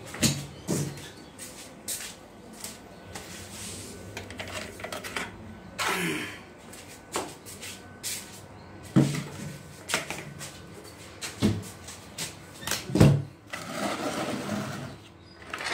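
Scattered knocks and clatter as a red plastic bucket of water is fetched and handled, with a short swish about six seconds in and another near the end.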